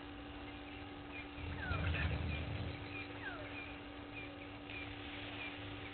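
Wild birds calling: a clear whistle sliding down in pitch, repeated about every second and a half, among short high chirps. A low rumble swells about a second and a half in, over a steady low hum.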